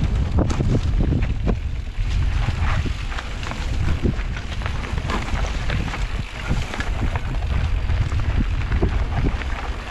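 Wind buffeting the camera microphone of a mountain bike riding down a dirt trail, a steady rumble broken by frequent clicks and knocks from the bike rattling over rough ground.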